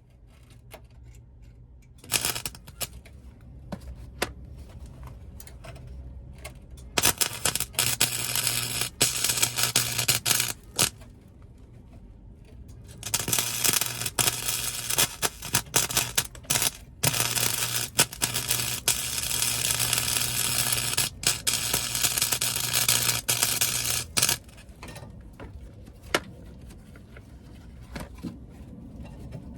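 Welding arc crackling and sizzling on sheet-steel car floor pan in several runs: a short burst about two seconds in, a longer weld a few seconds later, then a long run of about ten seconds with brief stops.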